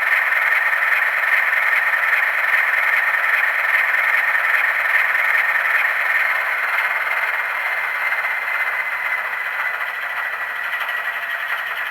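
Tsunami sound decoder in a Bowser Baldwin AS616 model diesel locomotive playing its diesel engine sound through the model's small speaker, thin with no bass. The engine sound slowly fades over the second half as the shutdown sequence runs down.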